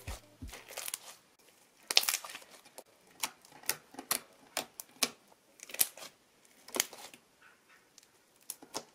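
Foam-ball slime being squished and pressed between fingers, giving irregular clicks and pops, about one or two a second.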